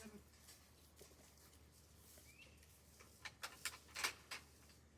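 Mostly quiet, with one faint short chirp about two seconds in and a quick run of short scuffing clicks between about three and four and a half seconds in.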